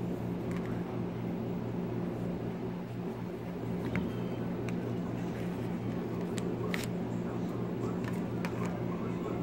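A steady low hum, with a few faint clicks and taps from a slim leather money-clip wallet and the cards in it being handled, the clearest about four seconds in and twice around six and a half seconds in.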